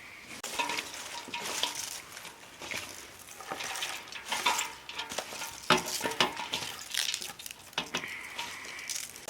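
A utensil stirring and scraping in a metal cooking pot, with irregular clinks and clatter and a louder clack a little past the middle.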